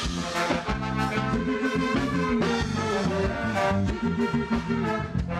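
Upbeat music with a steady beat.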